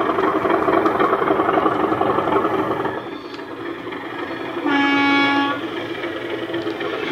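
Model Class 37 diesel locomotives' ESU LokSound decoder sound played through small onboard speakers: a recorded English Electric diesel engine running loudly, dropping in level about three seconds in. About five seconds in comes a single loud horn blast lasting under a second, then the engine sound carries on.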